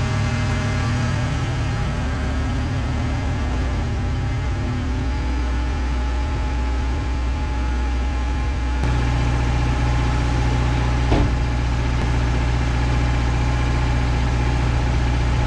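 Wood-Mizer LT15 Wide sawmill's engine running steadily, without the blade cutting, and settling into a steadier hum about nine seconds in. A single knock comes about two seconds later.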